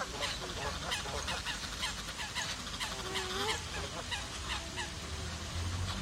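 A flock of birds gathered in a tree at dusk, calling all at once: many short, overlapping honking and chattering calls, several a second, over a steady low rumble.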